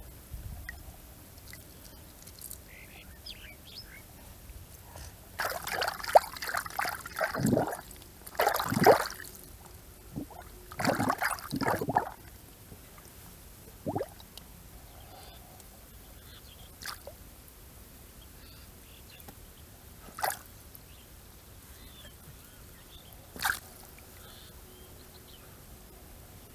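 Water splashing and trickling in three short bursts about five to twelve seconds in, then a few single drips or plops spaced several seconds apart.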